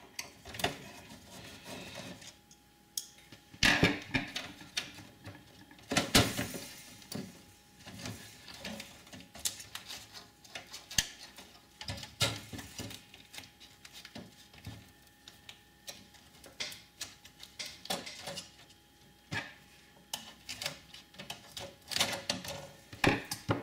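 A screwdriver working the screws out of a Power Mac G4 motherboard and the board being worked loose from its metal tray: irregular clicks, taps and scrapes of metal and plastic, with louder knocks about 4 and 6 seconds in and again near the end.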